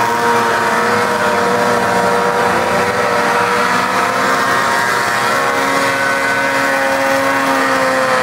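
Several small two-stroke racing outboard motors on hydroplanes running hard together, their overlapping engine notes holding a steady high pitch. One note starts to fall near the end.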